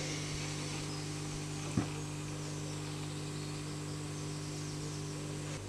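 A steady low hum, with one short knock about two seconds in as a green wood stick is handled against a saw blade on a wooden workbench.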